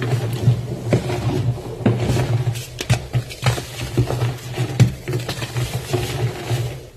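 Reformed gym chalk crunching and crumbling as it is crushed: a dense, irregular run of soft crackly crunches, several a second.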